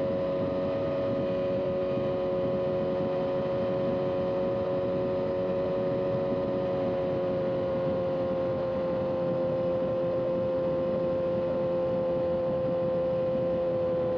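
Motorcycle engine running at a steady cruise, a steady drone that sinks slightly in pitch, over road and wind noise.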